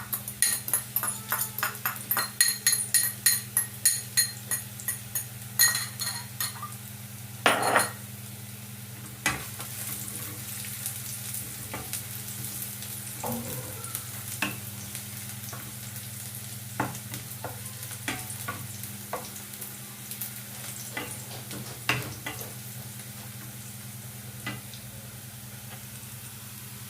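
Onions frying in a pan, stirred with a utensil that knocks and scrapes against the pan about three times a second for the first seven seconds. After that comes a steady sizzle with an occasional knock of the utensil.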